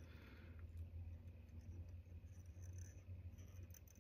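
Near silence: a low steady hum with faint scratchy rustling of fingers and tying thread as cheek material is tied in on a fly hook.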